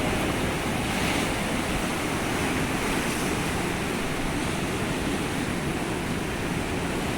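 Storm surf on the Atlantic shore: a steady, even rush of breaking waves.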